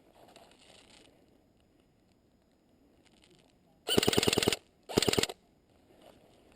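Airsoft gun fired on full auto in two short bursts about half a second apart, the first longer (about eight rapid shots), the second about four.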